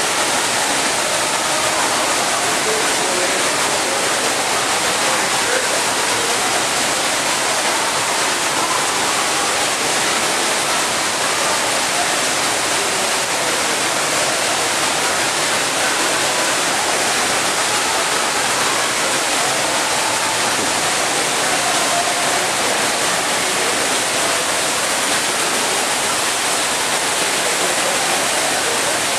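Steady rush of falling water, as from a waterfall in a zoo's indoor rainforest exhibit.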